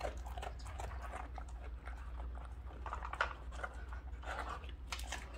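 A dog nudging a treat puzzle toy around on the floor: a run of short clicks and scrapes as its pieces shift, with one sharper knock about three seconds in.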